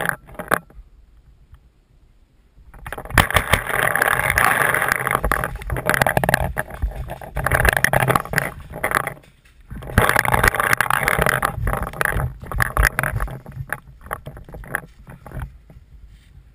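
Crunching and rustling of dry leaves and dirt underfoot, with close clothing and gear rustle, as a player moves along a leaf-covered trench. It comes in spells of a few seconds, with brief lulls about a second in and again past the middle.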